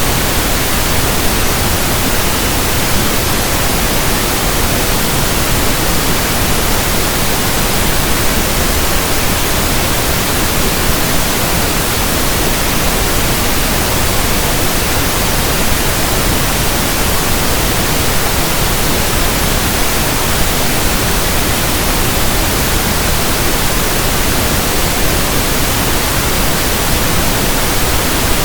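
Steady synthetic pink noise, an even hiss across the whole range that does not change.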